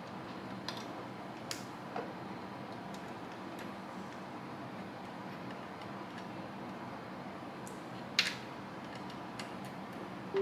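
Scattered light clicks and taps from a USB-A cable and plug being handled and plugged into a PC, the sharpest click about eight seconds in, over a steady background hiss.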